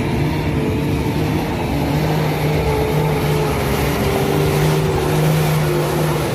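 Diesel engine of a loaded Hino medium-duty truck working hard under load up a steep, broken dirt climb. It runs steadily, and its pitch sinks slowly over the seconds.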